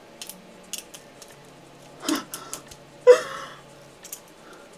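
Light clicks and rustles of hair being combed and worked by hand, with two short wordless vocal sounds, the louder one about three seconds in.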